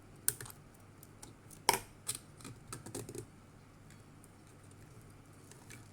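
A handful of sharp clicks and taps from small robot parts being handled and fitted back into place, bunched in the first half with the loudest nearly two seconds in.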